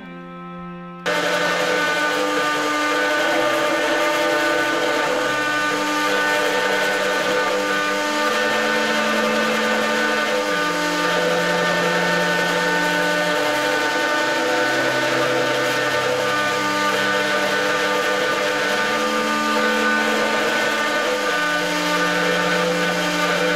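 CNC router spindle running with a V-bit carving, a steady high whine over a constant hiss of cutting, starting suddenly about a second in. Beneath it a lower tone shifts in pitch every two to three seconds.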